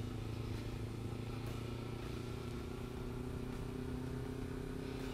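Kawasaki Ninja motorcycle engine running steadily while the bike is ridden along, an even, unbroken engine note with no revving.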